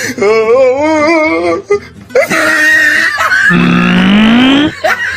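Dubbed comedy soundtrack of music and voices: a wobbling voice with strong vibrato for about a second and a half, then after a short gap a loud, noisy passage in which a voice slides upward in pitch near the end.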